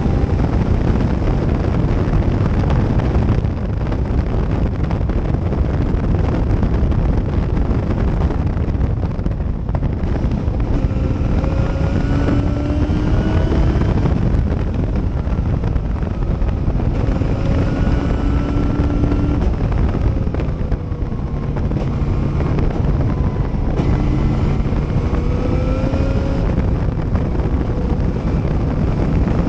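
Onboard sound of an open-cockpit Cobra-style race car at racing speed: heavy wind buffeting on the microphone over the engine, whose note rises under acceleration several times and briefly drops away in a few places.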